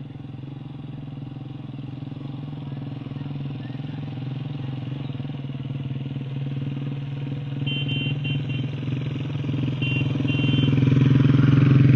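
Vehicle engine running with a steady hum that grows louder toward the end. Two short runs of high chirping notes come about halfway through.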